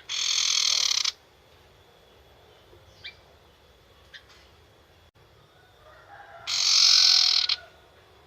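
Young wild-caught sirtu bird giving its harsh rattling 'nyetater' call twice, each about a second long, with a few faint short chips between.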